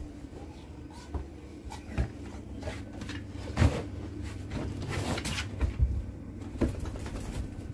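Irregular knocks and thumps, about six over several seconds, the loudest a little before the middle, over low rustling.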